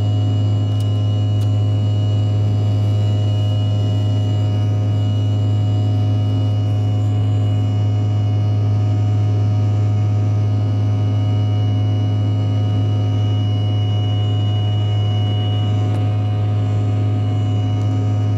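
Steady in-flight drone inside a jet airliner's cabin: engine and airflow noise with a strong low hum and a few faint steady whining tones above it, unchanging throughout.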